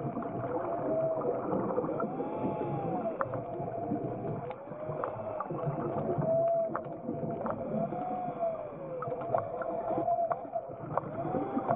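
An underwater ROV's electric thrusters whine, their pitch sweeping up and back down every second or two as the motors speed up and slow down. Scattered sharp clicks run over the top.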